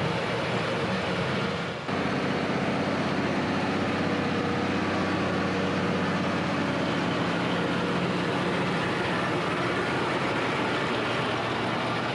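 Large diesel tractor engine running steadily in the field, with a brief dip in level about two seconds in.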